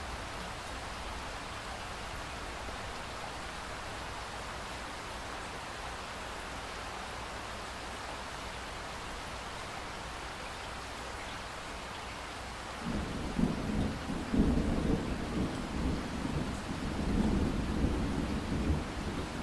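Steady rain hiss, and about thirteen seconds in a roll of thunder comes in: a deep rumble that swells several times, loudest a second or so after it starts.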